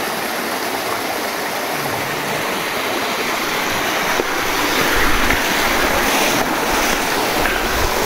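Mountain stream rushing steadily: an even hiss of flowing water that grows a little louder toward the end, with a low rumble joining about five seconds in.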